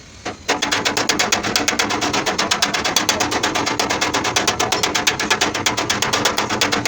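Fast, even tapping on car body sheet metal, about nine strikes a second, starting about half a second in. It is typical of a panel being worked out during fender repair.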